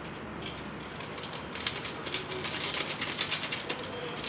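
Seasoning flakes being sprinkled by hand from a sachet onto a plate of instant noodles: a faint, fast crackle of fine ticks that gets busier about a second and a half in.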